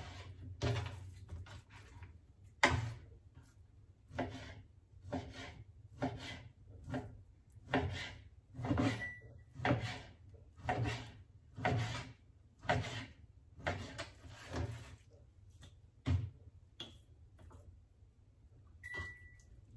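Kitchen knife slicing raw chicken breast on a plastic cutting board, the blade knocking the board with each cut, about one cut a second. The cuts stop about sixteen seconds in, and only a few light knocks follow.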